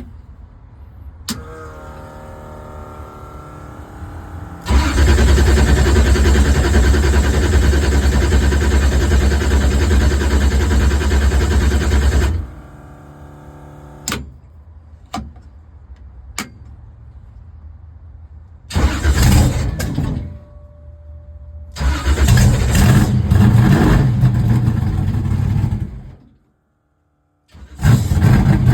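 1976 IMSA GTO race Corvette's V8 being started: the starter cranks for about three seconds before the engine fires and runs very loud. It then drops back, with short sharp blips, and comes up loud again in bursts of revving.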